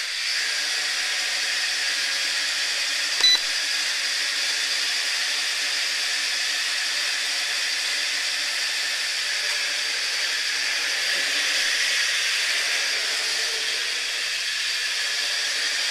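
Sharper Image DX-4 quadcopter hovering, its four small motors and propellers giving a steady high whir. One short click about three seconds in.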